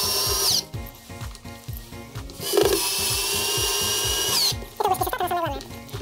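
Electric drill-driver driving self-tapping screws through the flange of a plastic washing-machine tub to fasten its two glued halves together. The motor whines steadily and winds down as a screw seats, about half a second in and again near the middle, after a two-second run. Background music with a steady beat plays underneath.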